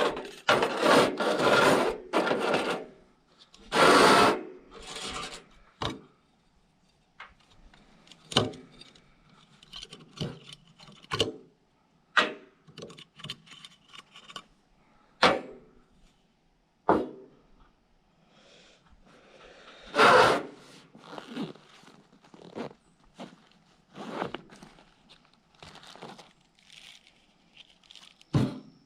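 Camp gear being handled: irregular rubbing and scraping, then scattered sharp clicks and knocks. The rubbing is densest in the first three seconds, and a louder scrape comes about twenty seconds in.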